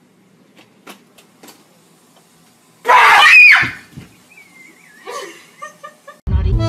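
A woman screams in fright once, loud and short, about three seconds in, after a man jumps out at her. A few faint ticks come before it.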